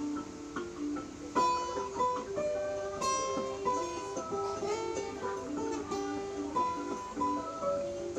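Background music: acoustic guitar playing a picked melody.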